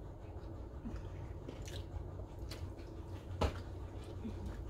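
People eating chicken wings and fries at a table: soft chewing and mouth sounds with a few light clicks and taps from handling the food, the sharpest about three and a half seconds in.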